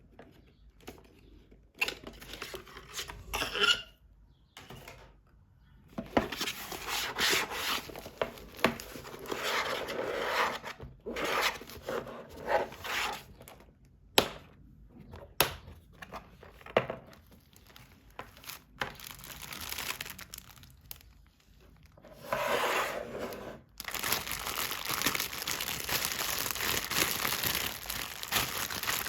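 Toy packaging being torn open and crinkled by hand, in stop-start bursts with a few sharp clicks, turning to steady crinkling near the end.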